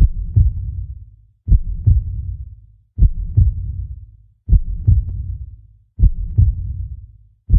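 Slow, deep heartbeat sound effect of the kind used to mark time slowing down: a double thump, lub-dub, repeats evenly about every one and a half seconds, each pair fading into a low rumble.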